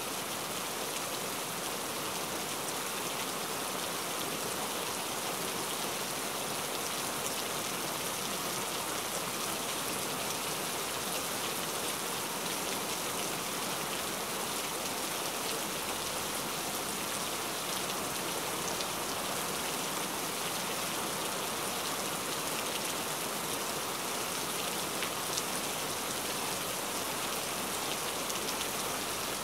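Steady rain falling: an even hiss with faint, scattered drop ticks, and no thunder.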